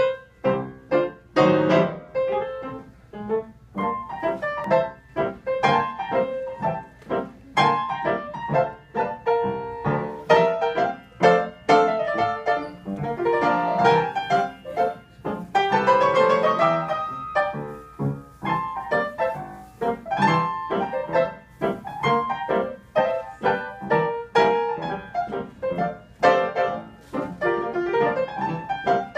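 Piano being played live: a steady flow of quick struck notes and chords.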